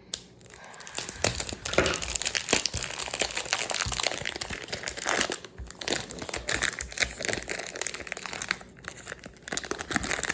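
Plastic packaging crinkling and rustling as a puzzle-cube box is cut open and unwrapped, in dense, irregular crackles with a couple of brief pauses.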